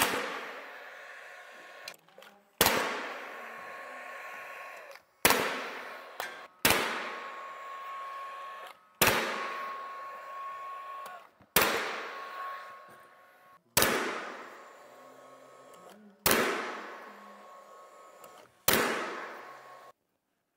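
Cordless nail gun firing nails into trim boards, about nine shots spaced two to two and a half seconds apart, each crack followed by a fading mechanical whir.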